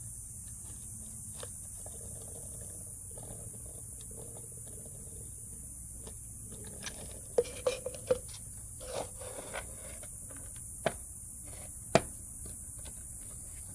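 Small clicks, taps and scrapes from handling a gel blaster, with a few louder sharp clicks about halfway through and again near the end.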